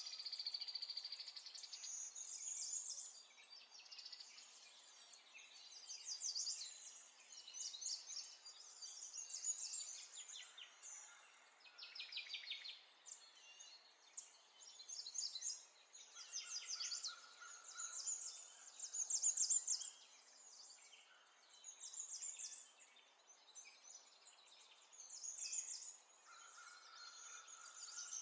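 Birds chirping and trilling: many short high calls in quick runs, some sliding downward, over a faint steady hiss.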